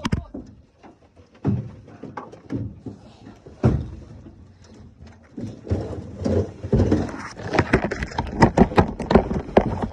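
Chaotic commotion aboard a small fishing boat as a big hooked alligator is fought alongside: a run of sharp knocks and thumps, crowding together in the second half, with muffled shouting.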